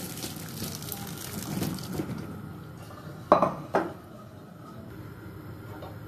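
Hot cooking water and boiled green chillies poured from a pot into a plastic colander in the sink: the water splashes and drains for about two seconds. A little past three seconds in come two loud clattering knocks, half a second apart, of the pot or colander against the sink.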